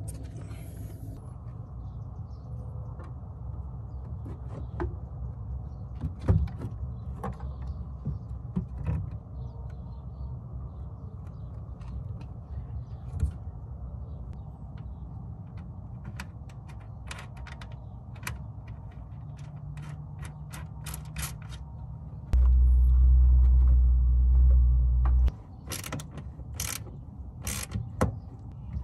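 Hands fitting an Intec carbon-fibre tail-light housing into a Subaru BRZ's rear body and fastening it from inside the trunk: scattered clicks and scrapes over a steady low rumble, with the clicks coming thick and fast near the end. A loud, very low rumble lasts about three seconds a little past two-thirds of the way in.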